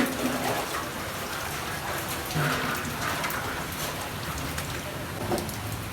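Food sizzling steadily in hot oil in a cooking pot, with a short knock at the start.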